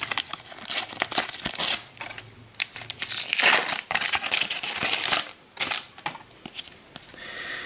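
Panini sticker packet wrapper being torn open and crinkled by hand: irregular crackling, loudest from about three to four and a half seconds in.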